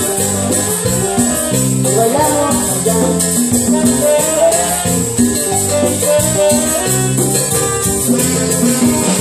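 Live tropical dance band playing a Latin groove: congas, a metal güiro scraped in a steady rhythm, saxophone, bass line and keyboard over a drum kit.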